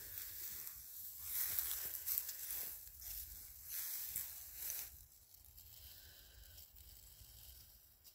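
Dry tall grass rustling and swishing as electric sheep netting is dragged through it and laid out on the ground. It is loudest for about the first five seconds, then fades to a softer rustle.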